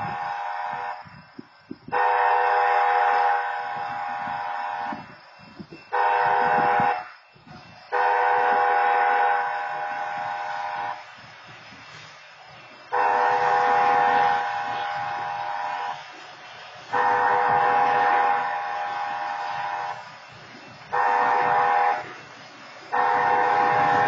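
Grade-crossing wayside horn blasting a chord of steady tones in the long-long-short-long crossing pattern, twice over, with a low rumble from a slowly approaching locomotive between blasts.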